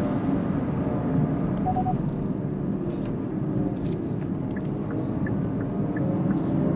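Kia EV6 AWD GT-Line electric car driving, heard from inside the cabin: a steady rumble of tyres on the road through a bend, with a few faint ticks.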